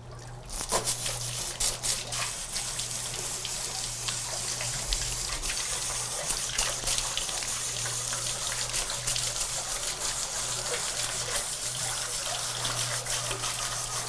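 Garden hose spray nozzle jetting water onto a stacked-ring plastic filter cartridge from an aerobic wastewater treatment unit, the spray splashing down into the open tank as debris is washed from between the rings. The spray starts under a second in and then runs steadily.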